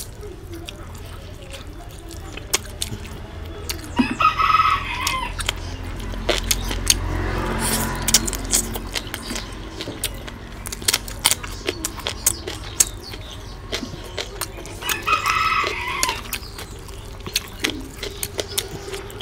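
Close-up mouth noises of a person eating rice and curry by hand: chewing, lip-smacking and wet clicks. A rooster crows twice in the background, about four seconds in and again about eleven seconds later.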